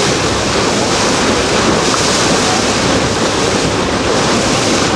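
Steady rush of open-sea water and waves, heavily overlaid by wind buffeting the microphone.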